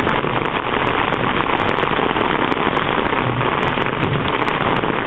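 Ice storm pelting the street and parked cars: a dense steady hiss like heavy rain, with many sharp ticks of ice pieces striking hard surfaces at uneven intervals.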